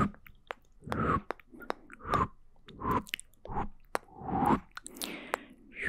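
Close-miked ASMR mouth sounds: wet clicks and smacks, with breathy swells about once a second.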